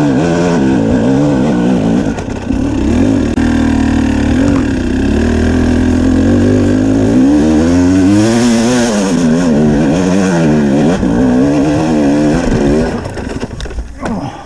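A 2017 KTM 250 EXC's two-stroke single-cylinder engine being ridden off-road, its revs rising and falling constantly with the throttle. Near the end it drops away and gets quieter.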